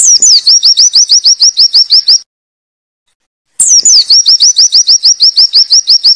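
Oriental white-eye (pleci) singing its long 'wit wit' phrase: a fast string of short rising whistled notes, about eight a second, each run opening with a higher falling note. One run stops about two seconds in, and a second starts after a pause of about a second and a half.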